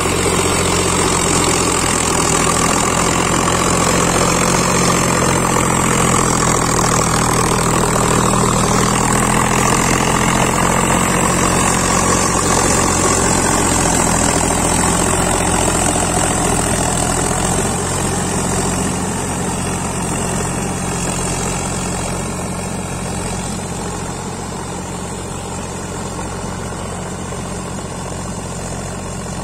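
Sonalika 50 RX tractor's three-cylinder diesel engine running steadily as the tractor works through deep mud. It grows gradually fainter in the second half as the tractor pulls away.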